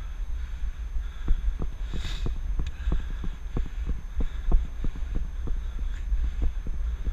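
Riding a bicycle, heard through a helmet-mounted camera: wind rumbles on the microphone, with irregular light knocks two or three times a second.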